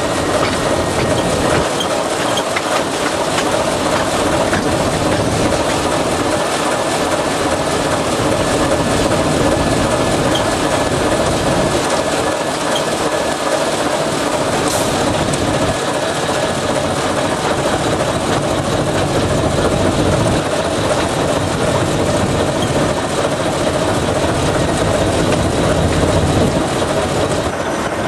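TEM2 diesel-electric shunting locomotive on the move, heard from its outside walkway: the six-cylinder diesel engine runs steadily under the mixed noise of the wheels on the rails.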